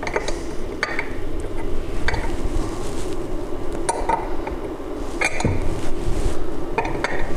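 Scattered metallic clinks and clicks of a wrench working the jam nut on a duplexer cavity's tuning rod as it is tightened, over a steady hum.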